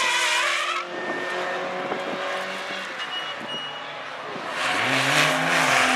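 Race car tyres skidding as a Porsche Boxster race car slides through the corner, the skid cutting off about a second in. Near the end another race car's engine comes past loudly, its pitch rising and then dropping.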